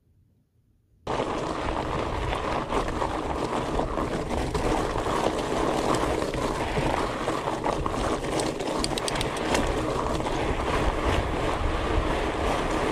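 Near silence, then about a second in a cut to the steady noise of a 2018 Fatback Rhino FLT fat bike rolling over a gravel wash on its 26x4.8 Maxxis Colossus tyres, full of small clicks and rattles, heard through a handlebar-mounted camera.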